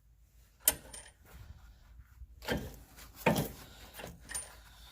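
Metal parts clinking and knocking as a sway bar link is worked into its mounting hole: one sharp click about half a second in, then a few duller knocks.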